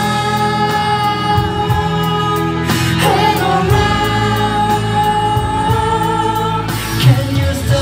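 Live K-pop song performance: male vocalists singing into microphones over the song's music, heard from among the concert audience.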